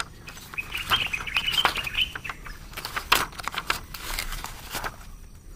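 Cardboard retail box with a plastic window being handled and opened by hand: irregular rustling, crinkling and tapping as the end flap is worked open. A wavering high-pitched tone sounds from about half a second to two seconds in.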